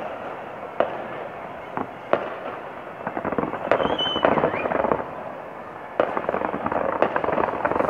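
Fireworks display going off: a continuous rumble of bursts, with sharp bangs roughly every second and a denser run of crackling about halfway through.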